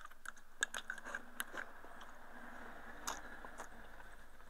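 A person eating rice from a bowl with chopsticks: quiet chewing with scattered light clicks.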